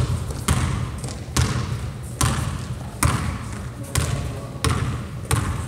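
A basketball being dribbled on a hardwood gym floor: about seven even bounces, a little more than one a second, each echoing around the gym.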